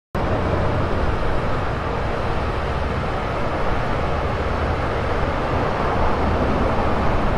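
Steady city street background noise: a constant low rumble with a hiss over it and no separate events.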